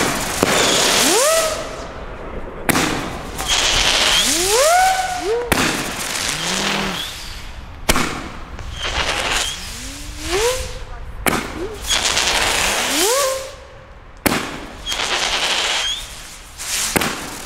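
Nico Monster King firework battery firing shot after shot, a sharp crack every two to three seconds, each followed by a hissing spark tail. Over most shots a ghostly howl rises in pitch, the battery's signature howling effect.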